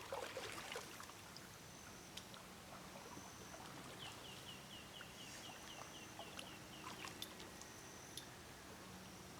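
Faint outdoor ambience on the water: light water trickles and drips with scattered small clicks. In the middle a bird calls a quick run of about a dozen short chirps, about four a second, and there are a few brief high whistled notes.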